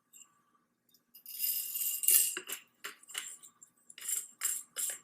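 Metallic rattling and clicking as the reassembled TriStar Raptor semi-auto shotgun's parts are handled. From about four seconds in, an even rattling rhythm sets in at about three strokes a second.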